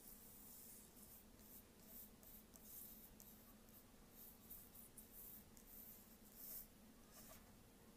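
Sheet of drawing paper sliding across a wooden tabletop as a hand turns it, heard as a string of faint, short, irregular swishes.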